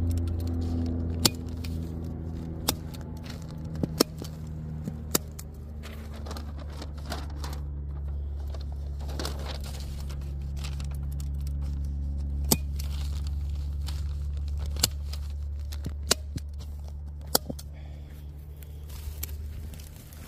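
Hand staple gun snapping staples through paper targets into a plywood backer: about eight sharp snaps at uneven gaps, with paper rustling between them. Under them runs a steady low engine hum that fades near the end.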